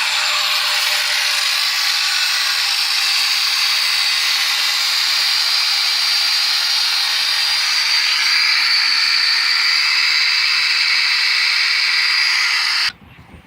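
Angle grinder with a cut-off wheel cutting into a steel suspension control arm: a steady, loud, high whine with a hiss that stops abruptly about a second before the end. The cut is not yet through.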